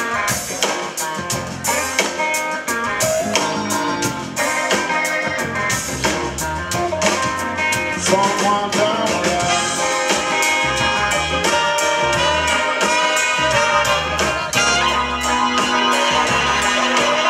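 Live blues band playing with a steady drum beat: electric guitar, bass, drum kit, keyboards and a horn section of saxophone and trumpet.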